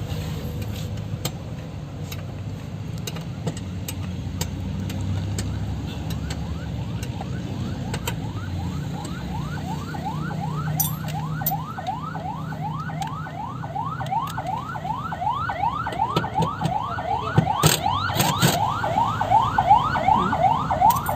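Electronic siren or alarm yelping: a rapid, repeating rising wail, about three sweeps a second, that starts about eight seconds in and grows steadily louder. A low hum and a few scattered clanks lie under it.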